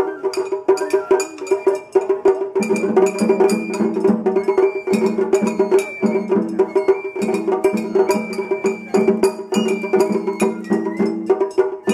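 Japanese festival ohayashi music played live: a shinobue bamboo flute holding high notes over rapid, sharp strikes on shime-daiko rope-tensioned drums. About two and a half seconds in, a deeper pulsing part joins the beat.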